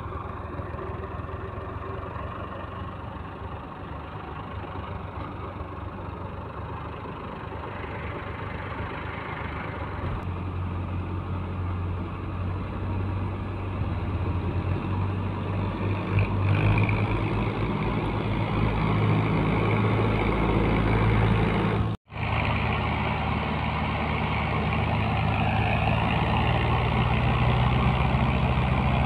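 Massey Ferguson tractor's diesel engine labouring under load as it hauls a heavily loaded sugarcane trolley, its black exhaust smoke showing the strain. The engine note grows steadily louder as it comes closer, and the sound breaks off for an instant about 22 seconds in.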